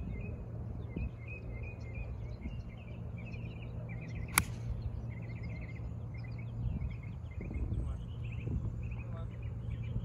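A single sharp click about four seconds in: a 6 iron striking a golf ball off the tee. Birds chirp throughout over a low, steady rumble.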